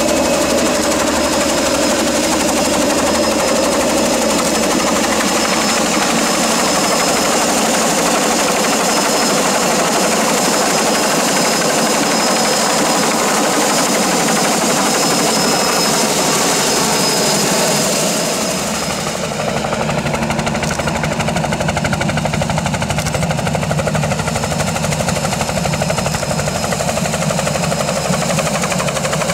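Bell 47 helicopter with a Soloy turbine conversion flying with a sling load: rapid rotor blade chop over a steady high turbine whine. About two-thirds of the way in the whine drops away and the sound turns lower as the helicopter comes round into a low hover.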